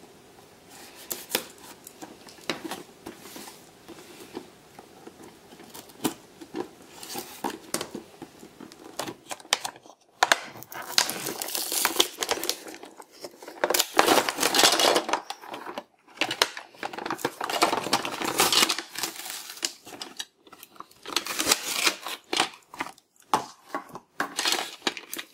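A toy box being opened and its plastic packaging handled: scattered clicks and scrapes of a knife on cardboard and plastic parts, then, from about ten seconds in, louder crinkling and tearing of plastic wrap in stretches of a second or two.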